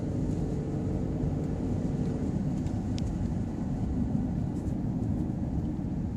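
Car driving on a paved road heard from inside the cabin: a steady low rumble of engine and tyre noise.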